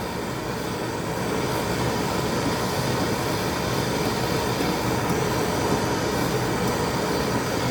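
Plumbing torch flame burning steadily against a copper pipe fitting, an even rushing noise with fans running underneath.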